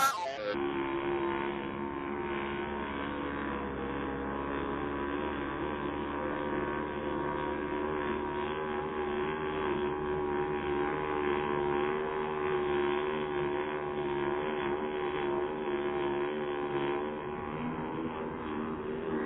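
Radio-controlled racing hydroplane's engine heard slowed down with the slow-motion footage: a steady, deep, wavering drone at a much lower pitch than its real-speed whine, which falls away in the first half second.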